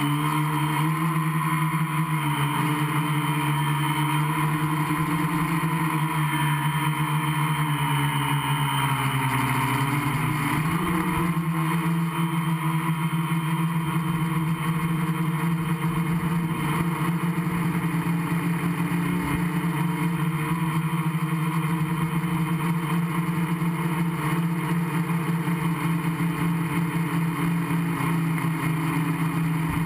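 Gaui 500X quadcopter's four electric motors and propellers running steadily in flight, heard close up from the onboard camera. The motor pitch shifts about ten seconds in, then holds steady.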